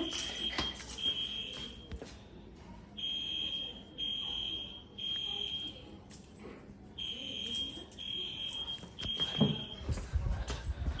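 Building fire alarm sounders beeping a high-pitched tone in groups of three with a short pause between groups: the evacuation signal. There are knocks and movement noise near the end.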